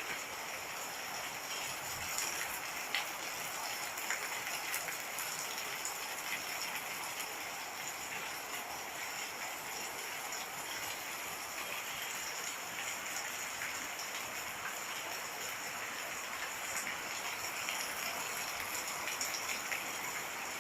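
Heavy rain falling steadily, with scattered drops ticking on surfaces.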